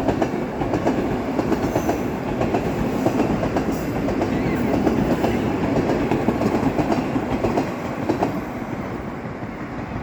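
A passenger train running past, its wheels clattering in quick clicks over the rail joints, growing louder to a peak midway and easing off near the end as it moves away.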